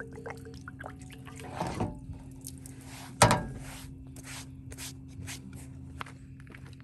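Small wet dripping and handling sounds with scattered light clicks, over a steady low hum; a sharp knock about three seconds in is the loudest sound.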